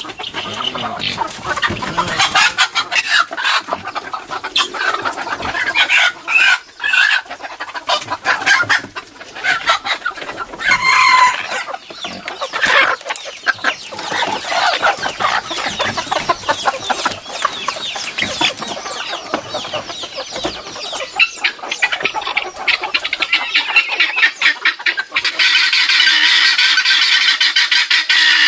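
Roosters crammed in bamboo baskets clucking and crowing continuously. Near the end a loud, steady, rapid chattering of birds takes over.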